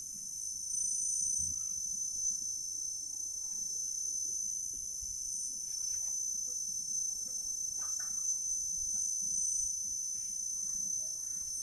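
Steady, high-pitched chorus of insects, continuous and unchanging.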